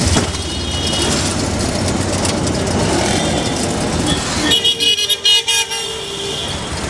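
Road and engine noise from riding in an auto rickshaw through city traffic, with a vehicle horn giving a quick run of short toots about four and a half seconds in.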